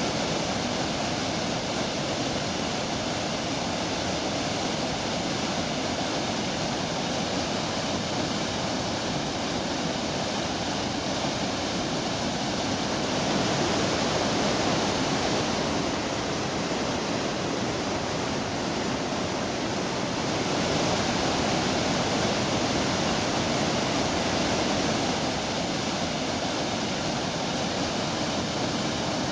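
Waterfall: white water rushing steadily over rocks, a little louder from about halfway through.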